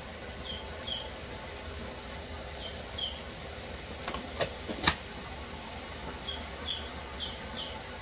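A metal measuring cup clinks against a frying pan as cottage cheese is scooped out, two sharp knocks just before and about five seconds in. Short high chirps, mostly in pairs, sound on and off over a steady background hiss.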